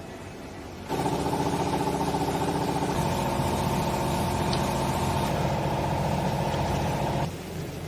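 Hydraulic pump of a clothes baling press working under load: about a second in, a loud steady whine and hum comes on over the machine's lower running hum, shifts in tone about three seconds in, and cuts off suddenly about seven seconds in.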